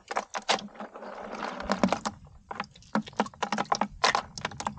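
Freshwater snails handled in a plastic bucket, their shells clicking and knocking against each other and the bucket wall: a run of quick, irregular clicks in clusters.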